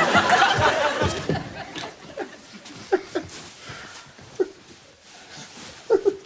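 Studio audience laughter fading away over the first second or two, followed by a few scattered short chuckles.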